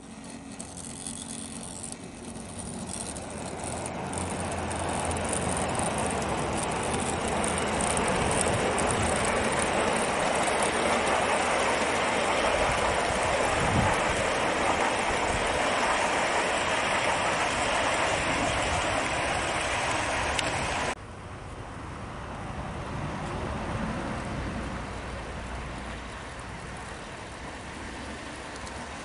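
Gauge 1 model train, a 10mm-scale Stanier Coronation Pacific with a rake of coaches, rolling along garden track: a steady rumble of wheels on rail that grows louder as it comes near. About twenty seconds in it drops suddenly to a quieter level and stays lower as the train runs farther off.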